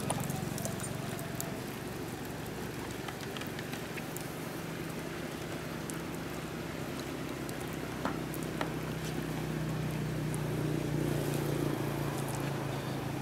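A steady low motor hum, rising a little in loudness late on, with a few scattered light ticks over it.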